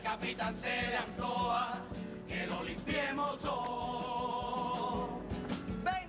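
A youth chirigota group singing in chorus, the voices held on long wavering notes, with guitar accompaniment and a steady percussive beat.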